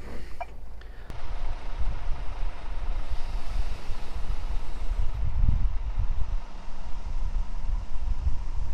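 Truck engine running: a steady low rumble with a faint steady whine over it, the rumble swelling briefly about five and a half seconds in.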